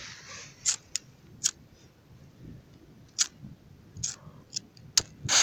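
Several sharp, irregularly spaced clicks, and near the end a loud steady hiss bursts in as a firework is lit.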